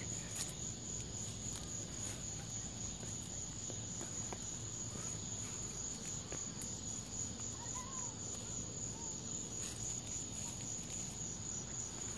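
Steady high-pitched chorus of insects such as crickets or katydids trilling at dusk, with a few faint footsteps and rustles on the trail.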